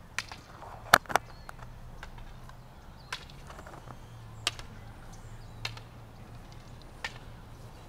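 Practice swords knocking together in tai chi sword sparring: about seven sharp, irregularly spaced clacks, the loudest a quick double strike about a second in, over a steady low hum.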